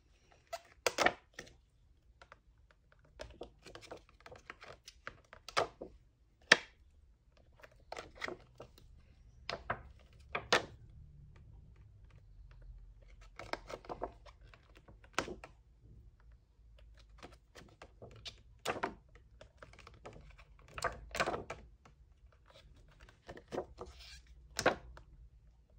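Clear resin stamps being handled and pressed onto the clear sheet of a plastic stamp case: irregular light plastic clicks and taps, about one or two a second with short pauses.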